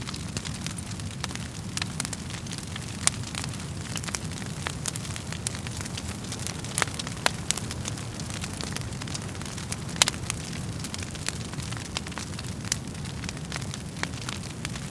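Wood fire burning in a fireplace: a steady low rumble of the flames with frequent sharp crackles and pops, two louder pops about three and ten seconds in.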